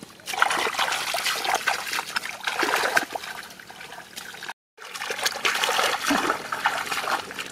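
Hands splashing and sloshing through shallow muddy water and mud while groping for fish, a busy run of irregular splashes. The sound cuts out completely for a moment a little past halfway, then the splashing resumes.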